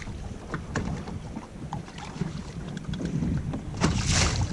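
Wind buffeting the microphone aboard a bass fishing boat, with low rumble, scattered small clicks and knocks, and a short rush of hiss about four seconds in.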